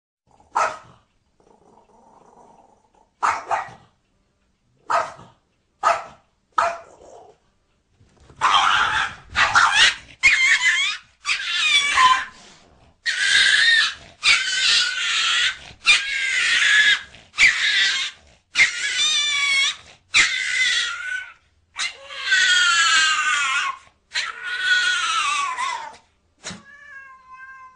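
Small dog barking sharply five times, then letting out a long run of loud, drawn-out yelping squeals, about a second each, one after another.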